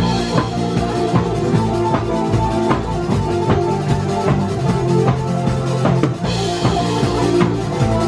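Live acoustic rock band playing: a drum kit struck with sticks, with bass drum and snare keeping a steady beat under acoustic guitar and piano. Cymbal crashes ring out near the start and again about two-thirds of the way through.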